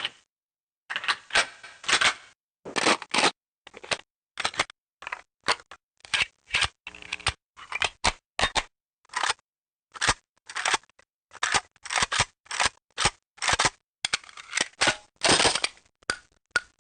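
A rapid string of short, separate sound effects, about two a second, each cut off sharply with silence between them. A longer, louder one sounds about 15 seconds in.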